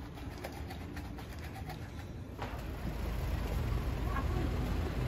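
A pigeon cooing over a low background rumble that grows louder about halfway through.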